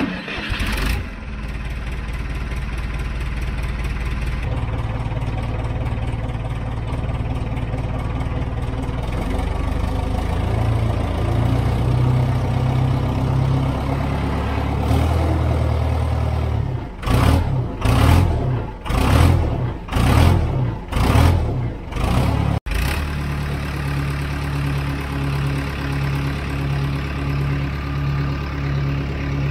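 Dresser TD-9H crawler dozer's diesel engine running after about seven years standing unused, starting abruptly and holding steady. About halfway through it is revved in a quick series of short bursts, about one a second, then settles back to a steady, lightly pulsing idle.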